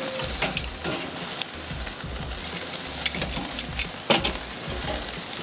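Eye round steaks sizzling on a hot charcoal grill grate as they are flipped with metal tongs, with a steady hiss and a few sharp clicks of the tongs against the grate.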